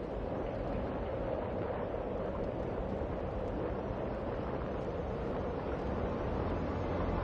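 Steady rush of wind on the microphone with rolling tyre noise from a bicycle riding along a paved path.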